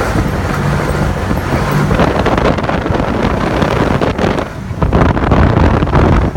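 Can-Am side-by-side UTV driving off-road: engine running under wind noise on the microphone. The sound dips briefly about four and a half seconds in, then comes back louder with sharp knocks.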